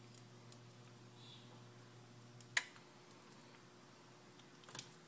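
Quiet kitchen: a faint low hum that cuts off with one sharp click about two and a half seconds in, and a lighter click near the end.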